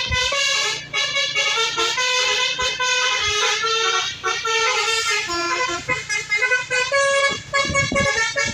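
Basuri multi-tone bus horn playing a quick melody of short notes that change pitch several times a second.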